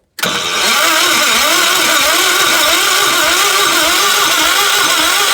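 Gravely tractor engine being cranked over, the starter labouring in a steady rise-and-fall rhythm with each compression stroke, without firing: the ignition points are fouled and give little or no spark.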